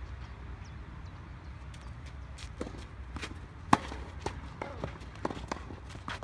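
Tennis rally on a clay court: sharp pops of racket strikes and ball bounces, the loudest a close forehand hit about three and a half seconds in, with fainter hits from across the court and feet scuffing on the clay. A steady low rumble lies under it.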